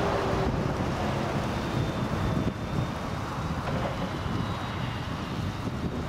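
Claas Jaguar 950 forage harvester chopping maize: a steady machinery drone with a faint high whine over it.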